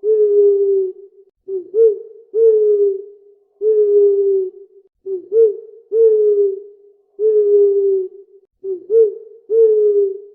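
Owl hooting in a repeating phrase: a short hooked note followed by two longer, slightly falling hoots, the phrase coming round about every three and a half seconds.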